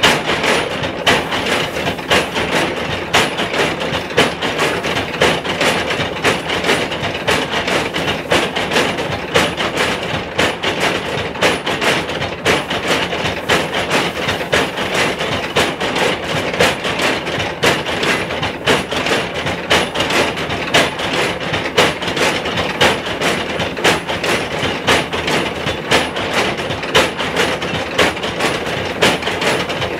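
Electric multi-pestle pounding mill, its row of pestles dropping into mortars of red pepper: a steady, rhythmic clatter of knocks that sounds like a train running.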